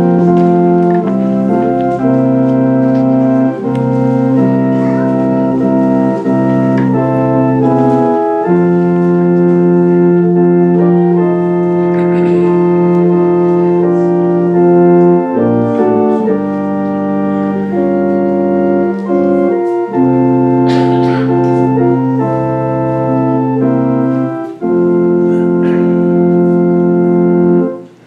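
Church organ playing a hymn introduction in held chords that change every second or two, with a short break about three-quarters of the way through and a stop just before the end, where the congregation's singing begins.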